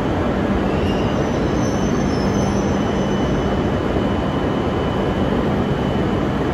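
E5 series Shinkansen train rolling slowly along the platform as it arrives, coming to a stop a few seconds in: a steady rumble with a low hum and faint high-pitched wheel squeals.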